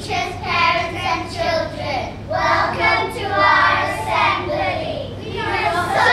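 A group of young children singing together in unison.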